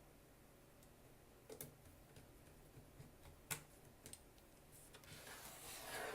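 Faint clicks and handling noise from laptop parts being worked by hand during reassembly. There are a few small sharp clicks, the loudest about three and a half seconds in, then a rustling swell near the end.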